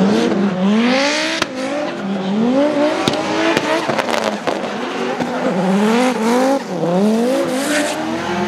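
Drift cars at full throttle in tandem, engines revving up and dropping back over and over as the drivers work the throttle, with tyres screeching and a few sharp cracks along the way. The leading car is a Group-B-styled Audi drift car with a five-cylinder engine.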